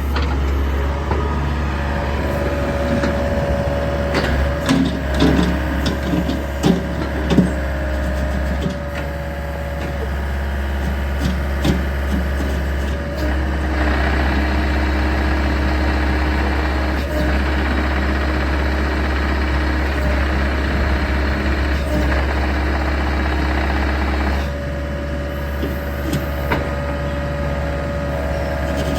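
Four-cylinder Isuzu diesel of an IHI 55UJ2 mini excavator running steadily. There are several knocks and clanks in the first several seconds, and a fuller, steady higher tone joins from about halfway in for roughly ten seconds.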